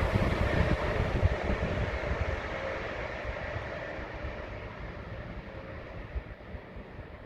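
Diesel-hauled freight train rumbling past and fading steadily into the distance, with a faint steady engine tone dying away.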